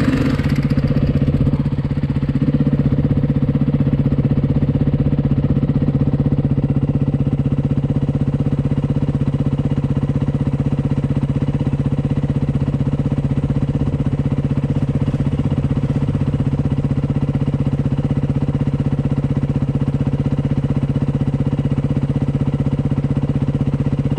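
Dirt bike engine idling steadily, with an even, unchanging pitch and no revving.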